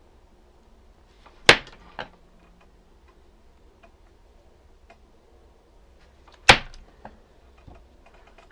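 Two sharp clicks about five seconds apart, each followed by a fainter tick, as a switch is worked loose from a small circuit board under a soldering iron.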